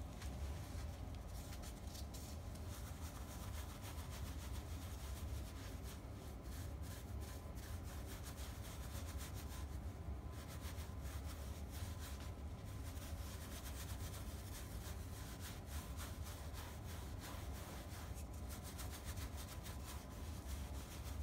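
Wet paintbrush scrubbing chalk paint into upholstery fabric with rough, continuous back-and-forth strokes, over a steady low hum.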